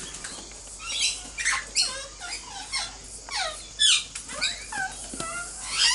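Princess parrots calling: a quick run of short, squeaky chirps, many sliding down in pitch, about two a second.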